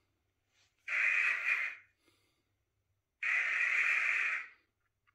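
A person taking two long, heavy breaths close to the microphone, each lasting about a second, the second starting about three seconds in.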